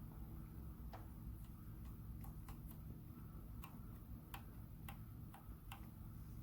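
About ten light, irregularly spaced metallic clicks of hand tools and engine parts during engine disassembly, over a faint steady low hum.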